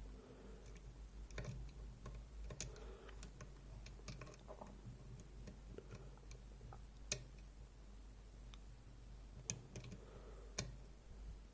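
Faint, irregular metallic clicks and ticks from a pick working inside a DOM iX6SR dimple lock, as the picker tries to set its interactive element at the back. A few sharper clicks stand out near the middle and toward the end, over a low steady hum.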